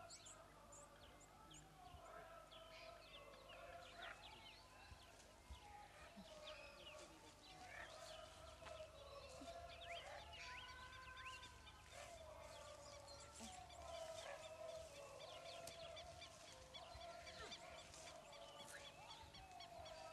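Wild birds calling in dry bush: a faint, busy chorus of many short chirps and whistles over lower warbling and honking calls.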